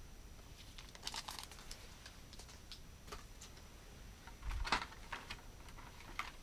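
Crinkling and rustling of plastic toy packaging in short scattered crackles, with a cluster about a second in and the loudest bout about four and a half seconds in.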